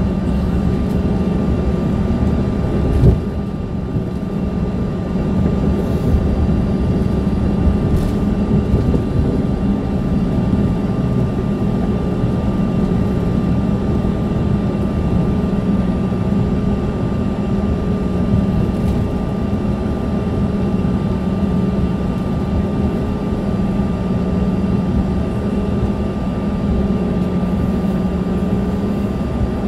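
Steady cabin noise of a small airliner taxiing after landing: the engines hum at idle with a low drone and a thin, steady high whine. A single thump comes about three seconds in.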